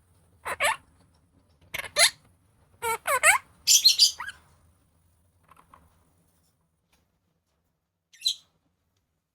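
Opaline monk parakeet calling: a run of four short, loud chattering calls in the first four seconds or so, then a faint pair, and one short high squawk near the end.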